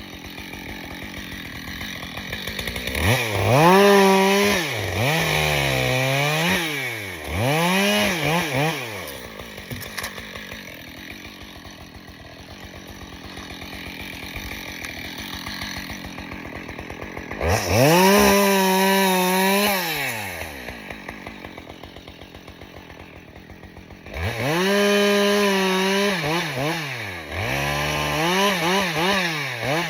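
Husqvarna two-stroke chainsaw revving up to high speed in three spells, its pitch dipping and climbing again in quick succession, and falling back to a quiet idle between spells.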